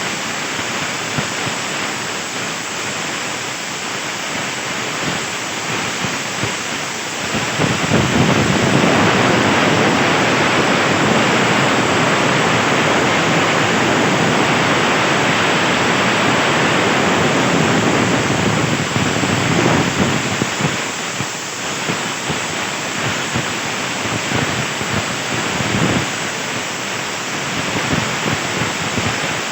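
CNC plasma torch cutting thin 1.5 mm sheet steel, a loud steady hiss of the air-plasma arc. It grows louder about a quarter of the way in and falls back about two-thirds of the way through.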